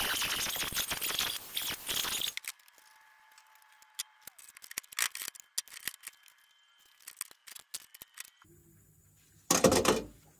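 A hand tool cutting into a metal bracket clamped in a bench vise: about two seconds of loud, rough, scraping noise, then small scattered clicks and taps as the work is handled, and a short loud clatter near the end.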